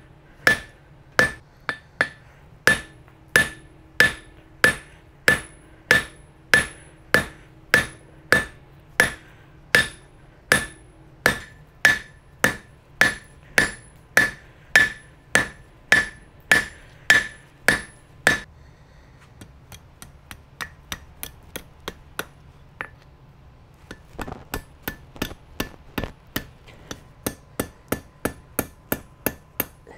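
Hand hammer striking hot steel rebar on an anvil, with the anvil ringing at each blow, about two blows a second: the end of a hook is being forged. About 18 seconds in the blows turn lighter and quicker, stop briefly, then pick up again.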